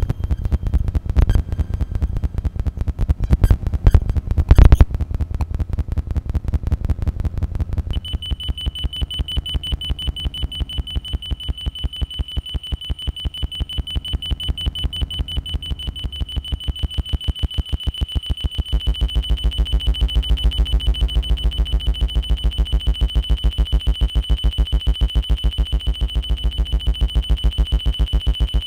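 Real-time generative electronic sound driven by a Mandelbox fractal algorithm: a fast, even train of pulses over heavy bass, with a few loud clicks in the first five seconds. About eight seconds in, a steady high alarm-like tone enters and holds; about two-thirds of the way through, a dense buzzing layer of lower tones joins it.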